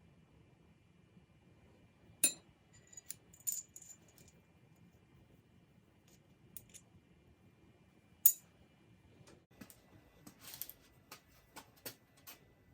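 Small metal parts clinking and tapping on a hard surface. There are a few sharp clinks, the loudest about eight seconds in, then a quick run of lighter clicks near the end.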